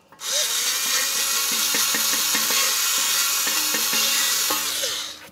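Power drill spinning a wire bore brush in the ABS sensor bore of a steering knuckle, scouring out rust and debris: a steady scraping whir with a motor whine, starting just after the beginning and winding down near the end.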